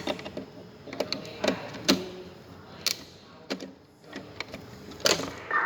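Irregular clicks and knocks, a handful of them at uneven spacing, the sharpest about two seconds and five seconds in.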